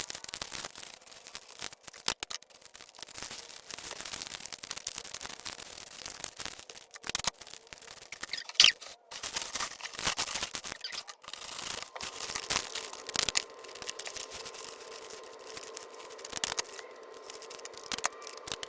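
Paper crinkling and rustling in irregular crackles as it is folded around a box to wrap it by hand.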